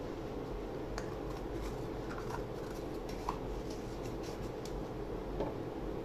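Faint scattered taps and light handling clicks of craft pieces and a paint sponge on tissue paper over a steady low room hum.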